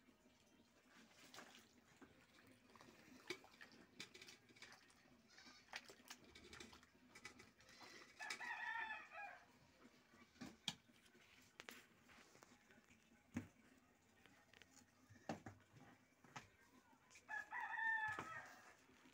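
A rooster crowing twice, about nine seconds apart, over near silence with a few faint scattered clicks.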